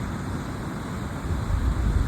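Sea surf washing, with wind buffeting the microphone as a low rumble that swells louder near the end.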